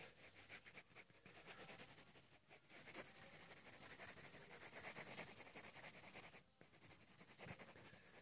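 Faint scratching of a wooden graphite pencil on paper, drawn in quick, short back-and-forth strokes as lines are sketched, with a brief pause about six and a half seconds in.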